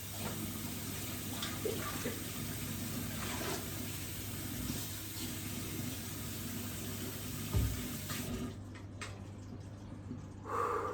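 Water running steadily from a tap into a sink, shut off suddenly about eight seconds in, with a dull knock shortly before.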